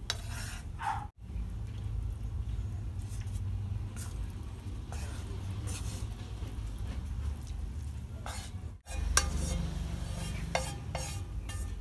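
A wooden utensil scraping and tapping a nonstick frying pan as stir-fried udon with minced beef slides out into a ceramic bowl, over a steady low hum. A run of sharp clinks and taps comes near the end.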